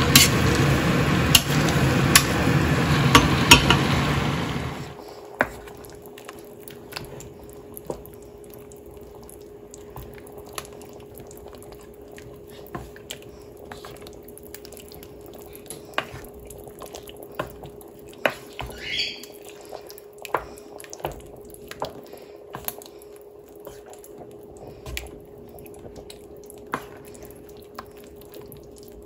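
A metal potato masher working raw ground beef and diced vegetables in a stainless steel pot, loud and dense for about the first five seconds. After that, a wooden spoon stirs thick meat sauce in the pot, with scattered light taps and clinks against the metal over a faint steady hum.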